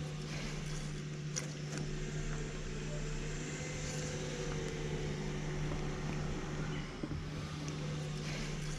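A steady low mechanical hum at one even pitch, like a motor or engine running, with a few faint clicks over it.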